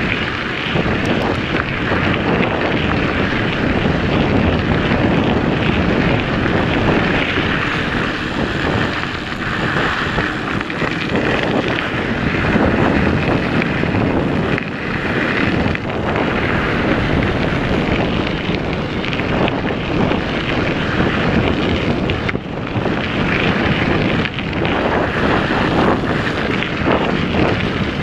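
Wind rushing over a helmet camera's microphone while a mountain bike rolls along a dirt trail, mixed with the rough noise of the tyres on dirt and the bike rattling.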